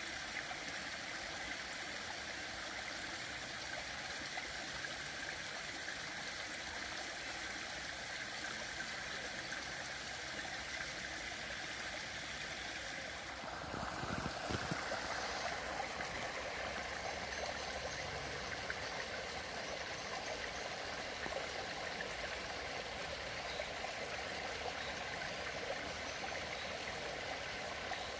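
Water of a small stream running and spilling through a beaver dam of sticks, a steady rushing trickle. About halfway through it becomes a little louder and brighter.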